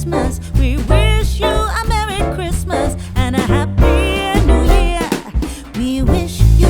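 Background music: a melody over a heavy bass line.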